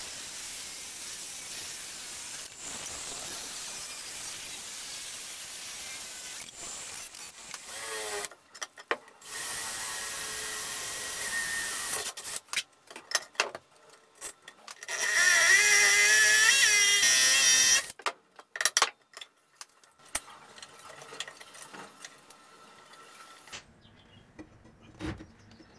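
A cordless angle grinder cutting steel angle iron, a steady hiss for the first seven seconds or so. After that a cordless drill works at the angle-iron bracket on the hearth slab: a loud, wavering whine for about three seconds in the middle, then short bursts as the fixings are driven in.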